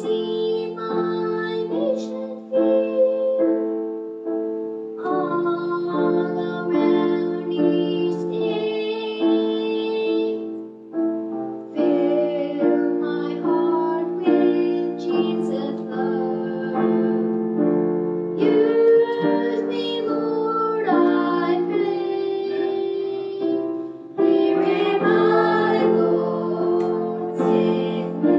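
A small group of children singing a song together, with piano accompaniment.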